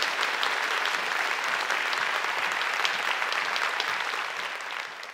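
Audience applauding, a dense steady patter of many hands clapping that fades out near the end.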